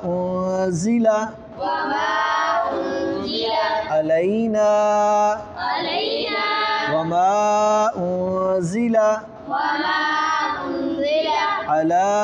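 Boys chanting Quranic verse together in unison, repeating phrases after their teacher in a melodic tajweed recitation. The phrases run one after another with short pauses between them.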